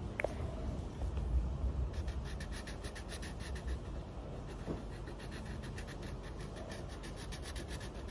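Yellow felt-tip marker scribbling back and forth on a colouring book's paper page, starting about two seconds in as rapid, even strokes of about five or six a second, over a low steady rumble.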